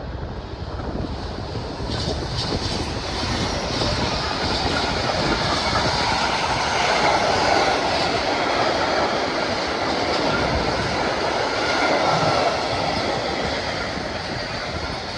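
A train running past on the rails: a steady rumble and rattle of wheels on track that grows louder over the first few seconds, with a few faint clicks from the rails about two seconds in.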